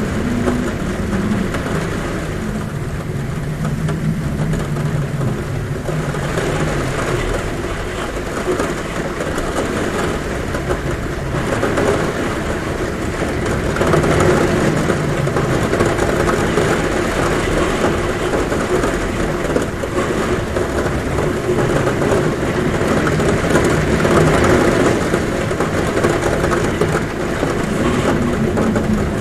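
Heavy rain falling steadily on a roof, a dense even hiss, with a low wind hum that rises and falls underneath.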